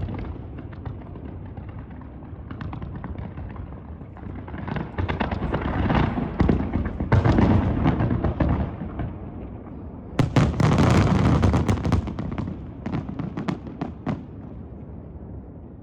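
Fireworks display: scattered bangs and crackling, building into a dense barrage about five to nine seconds in, then another sharp burst of rapid bangs starting about ten seconds in, thinning out near the end.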